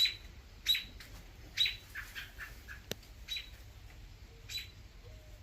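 Adult American robin giving repeated sharp alarm calls, about one a second, agitated at a person near its nest.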